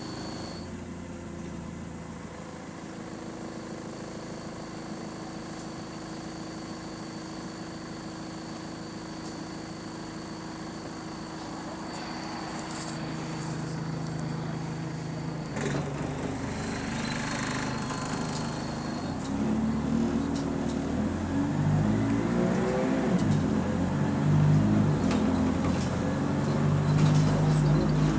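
XFE-converted diesel single-deck bus engine, heard from inside the saloon: it idles at a high idle speed with a steady hum, then about halfway through the bus pulls away and the engine rises in pitch and grows louder, stepping up several times through the gears.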